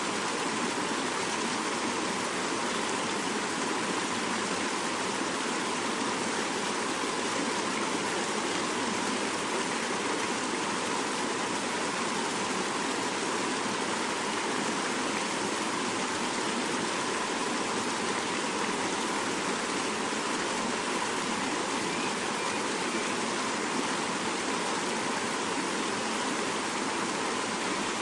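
Fast-flowing mountain river rushing steadily over rocks.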